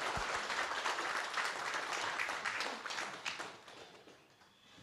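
Audience applauding, thinning out and fading away about four seconds in.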